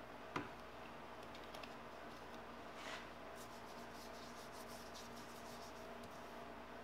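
A small turned metal spacer being lapped by hand on a wet abrasive sheet over a granite surface plate: faint, quick scratching strokes, mostly in the second half, after a single sharp click about half a second in.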